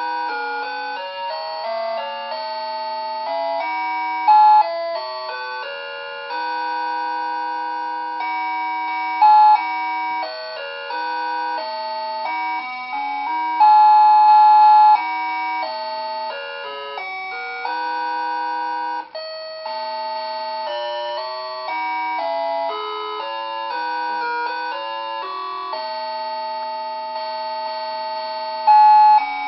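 A Christmas tune played note by note in simple electronic beeping tones, like a melody chip, with no bass or drums.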